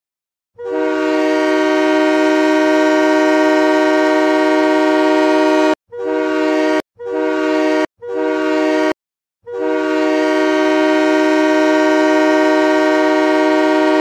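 Nathan Airchime K5LA five-chime train horn sounding a chord, used as a hockey goal horn. It gives one long blast of about five seconds, three short blasts, then another long blast.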